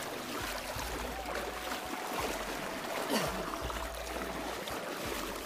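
Water sloshing and splashing as a person wades through a shallow, muddy forest stream.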